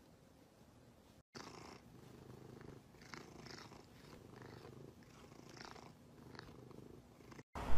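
Domestic cat purring steadily while its chin is scratched, a low rumble that starts about a second in.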